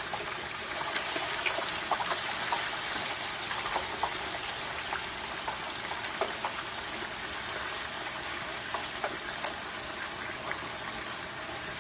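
Hot peanut oil in a turkey-fryer pot hissing and bubbling hard as a whole turkey is lowered in, with scattered crackling pops throughout: moisture in the bird boiling off as steam.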